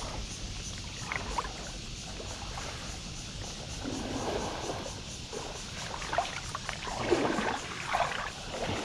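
Water sloshing and splashing as a fishing net is worked in shallow water, with a few louder splashes in the second half.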